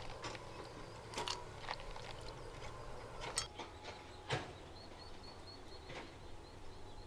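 Irregular sharp knocks and taps, about six of them, the loudest about halfway through. Near the end there is a quick run of faint, short, high chirps.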